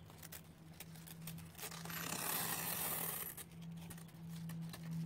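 Cloth-backed sandpaper strip being peeled off a sanding drum and wound by hand into a loose roll: stiff papery crackling and rustling with many small clicks, over a steady low hum.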